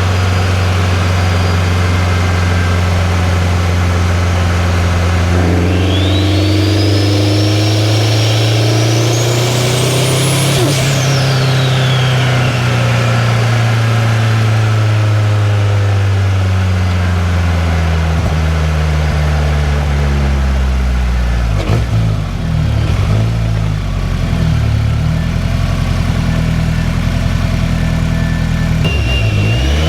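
2003 Subaru WRX's turbocharged flat-four engine heard from outside the car on the move: it runs steadily, then revs climb for about five seconds with a high whistle rising alongside. About eleven seconds in, the whistle drops away sharply and the revs fall back. In the last third the engine runs at lower revs with an uneven, wavering note.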